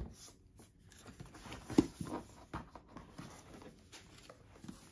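Paper and cardboard handling noises: art cards and boxes rustling and tapping as they are picked up and set down on a desk, with one sharper tap about two seconds in.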